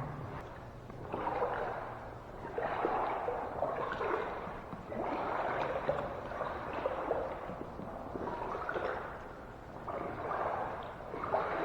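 Wading through floodwater in waders: water sloshing and swishing with each stride, in a slow series of swells about one every second and a half.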